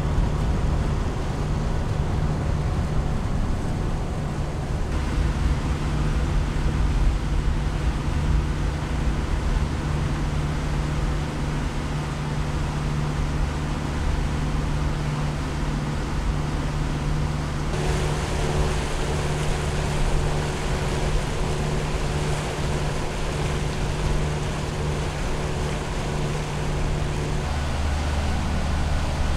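Leopard 45 catamaran's diesel engines running steadily under way, a low hum with wind and water rushing past the hull. The hum shifts abruptly a few times, about 5, 18 and 27 seconds in.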